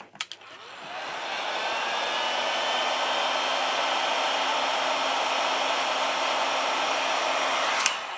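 Heat gun switched on with a click. Its fan spins up over about a second with a rising whine, then blows steadily, clicks off near the end and winds down.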